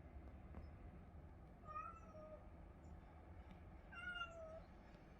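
A cat meowing twice, about two seconds apart, each meow well under a second long.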